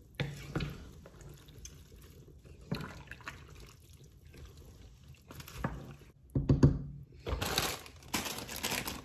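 Wooden spatula stirring cabbage through a pan of milky soup, soft wet sloshing strokes now and then. Near the end a plastic bag crinkles.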